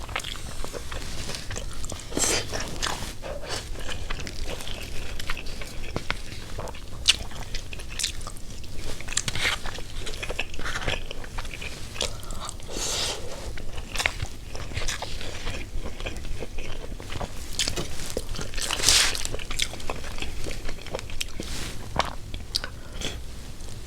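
Close-miked eating: a person chewing and biting burger steak with rice, with irregular wet mouth clicks, smacks and small crunches.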